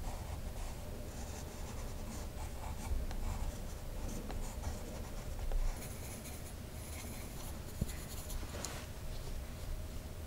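Colored pencil scratching over hot-pressed watercolor paper in short sketching strokes. About six seconds in, this gives way to a paintbrush swirling in a small dish of poster paint, with one sharp click partway through.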